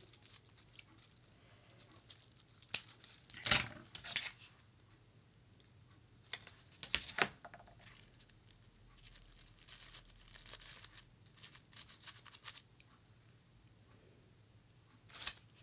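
Scissors snipping preserved flowers and the crisp rustle of dried petals and tulle being handled: scattered snips and rustles, with a few sharper clicks.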